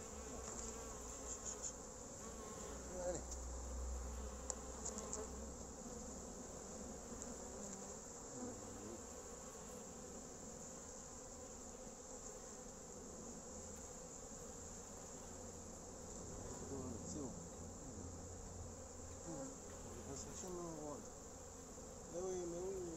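Honeybees buzzing around an open wooden hive in a steady hum, with single bees gliding up and down in pitch as they fly past the microphone. A few light knocks come from the wooden cover board being handled.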